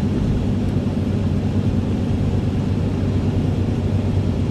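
Steady road and engine noise inside a car cabin cruising at highway speed: a continuous low drone with tyre rumble.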